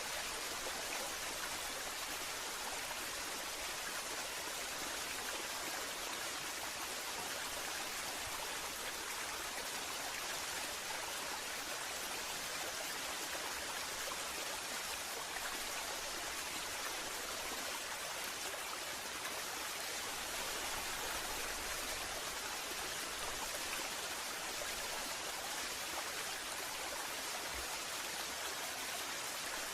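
Waterfall: a steady, even rush of falling water, bright and hissy, without change.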